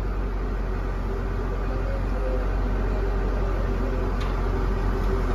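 Heavy diesel engine of an excavator running steadily, a low even hum, as its bucket works against a tipped tractor.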